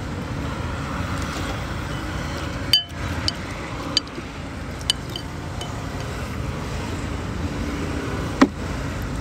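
A metal spoon and chopsticks clinking against a ceramic soup bowl: about six sharp, briefly ringing clinks, the loudest near the end, over the steady low rumble of road traffic.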